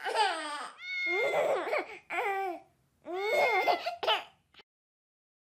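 A baby crying: a series of high wailing cries, each about a second long with the pitch falling, ending a little after four seconds in.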